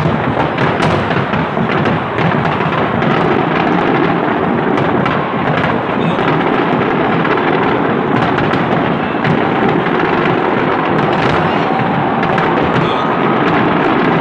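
Aerial fireworks display at full intensity: many shells bursting at once, sharp bangs and crackles running together into a continuous loud din.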